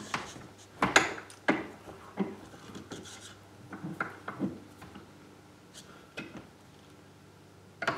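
A small chisel tapped with a hammer and worked into a wooden boat hull, hollowing it out: several sharp knocks in the first two seconds or so, then softer scattered knocks and scraping of the blade in the wood.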